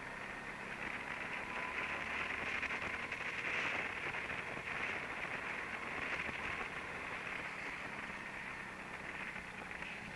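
A go-kart being driven round an indoor track, heard from on board: a steady rushing noise that swells a little a few seconds in, with no clear engine note.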